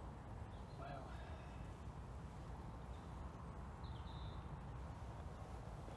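Steady low wind rumble on the microphone, with a few short bird chirps, about a second in and again near four seconds.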